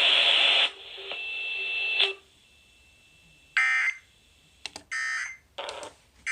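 Emergency Alert System digital data tones: four short buzzy bursts in the second half, coming between one broadcast warning and the next. Before them the radio audio cuts off abruptly under a second in, and a thin steady tone sounds briefly.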